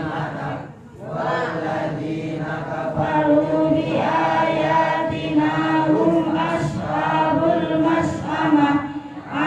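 A group of voices chanting a devotional chant together in unison, long drawn-out sung phrases with brief pauses for breath about a second in and near the end.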